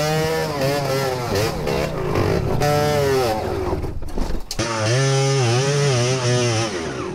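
Kawasaki KMX125's two-stroke single-cylinder engine revving up and down as the motorcycle is ridden over rough trail, its pitch rising and falling roughly once a second. The engine briefly drops away about four seconds in. Knocks from the bumpy ground run through it.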